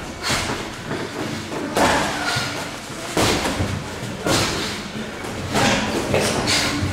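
Boxing gloves landing punches during sparring: irregular thuds, about a second apart and some in quick pairs.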